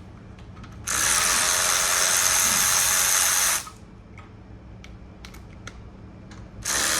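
A cordless power tool running in two bursts, one of about three seconds and another starting near the end, backing bolts out during an engine teardown. Between the bursts are a few light metal clicks.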